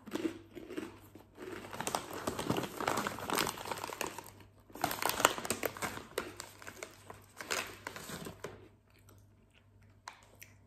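A plastic chip bag crinkling as it is handled and set down, in two long spells with a short pause between, stopping a couple of seconds before the end.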